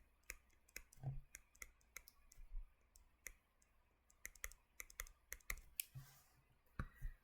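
Faint, irregular clicking, about two or three clicks a second with a short pause about halfway through, from drawing on a computer.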